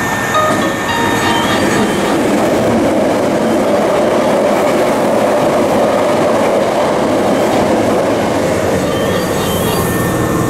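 Hankyu Kyoto Line electric train passing through the station at speed without stopping: a loud, steady rush of wheels on the rails.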